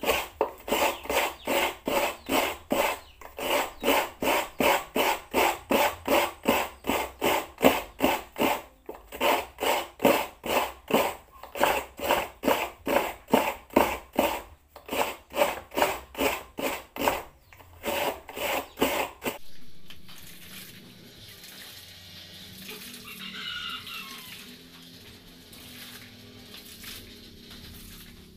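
Coconut flesh being grated on a bench-mounted coconut grater (kudkuran): a steady rhythm of rasping scrapes, about two and a half a second, that stops suddenly about two-thirds of the way through.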